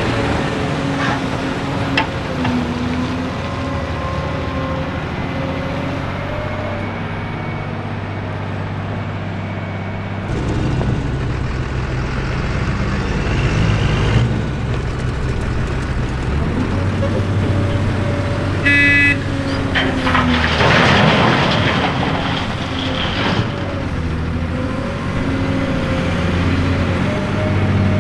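Cat 385C LME hydraulic excavator's diesel engine running under working load, its pitch rising and dipping. About 19 seconds in comes a short horn toot, and just after it a louder, noisier stretch of about three seconds.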